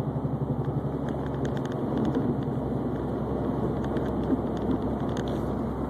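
Subaru Baja wheel bearing with a flat spot worn into its race, making a fast pulsing wah-wah-wah drone as the car drives, over road noise. The pulsing is strongest in the first second, then evens out into a steadier drone.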